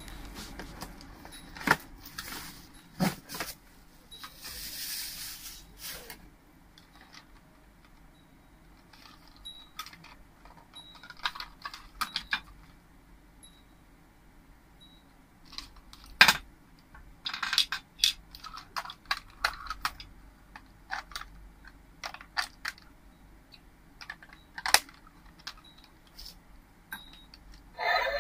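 Scattered light clicks, taps and clinks of small hard objects being handled, irregular and unevenly spaced, with one sharper click about two thirds of the way through.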